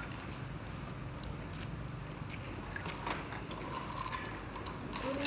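Mealtime room sound at a table: a steady low hum with a few faint clicks of chopsticks and dishes as someone picks food from a clay pot.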